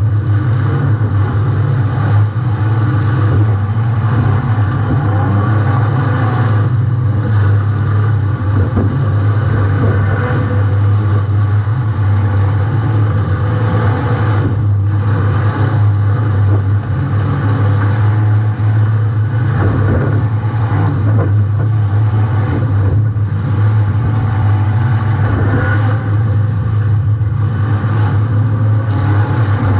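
Compact demolition derby car's engine running steadily at a fairly constant speed, with rough rattling noise on top, heard from a camera mounted on the car.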